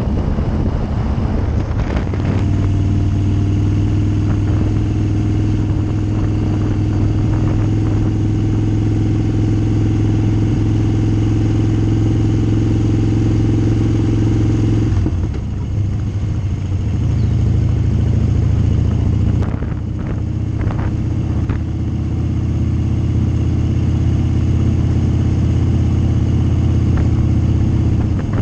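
Harley-Davidson Street Bob's V-twin engine running at a steady cruise on the road. It eases off about halfway through, then pulls steadily again.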